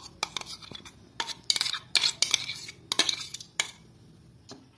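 Metal spoon scraping and clinking against a stainless steel grinder jar and a glass bowl as thick mango puree is scooped out. A quick run of short scrapes and knocks that stops about a second before the end.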